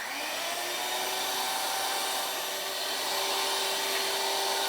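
Electric mixer beating crepe batter, its motor running at a steady speed with an even whine.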